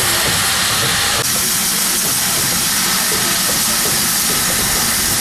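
Loud, steady hiss of steam escaping low down from BR Standard 5MT 4-6-0 steam locomotive No.73050, with a brief break about a second in.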